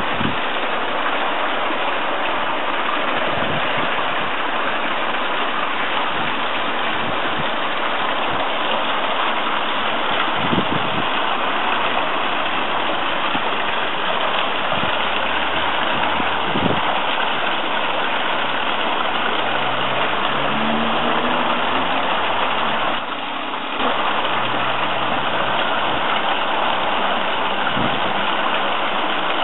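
Steady rush and splash of a garden pond waterfall pouring into the water.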